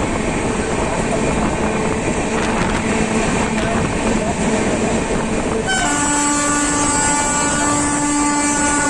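A train rolling along the track, heard from the open doorway of a moving coach as a steady rumble of wheels and wind. About six seconds in, an Indian Railways locomotive horn sounds one long, steady blast that carries on past the end.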